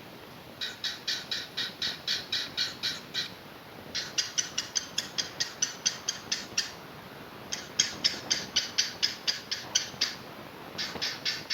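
Cockatiel chirping in runs of quick, evenly repeated high notes, about four or five a second. Each run lasts a couple of seconds, with short pauses between, four runs in all.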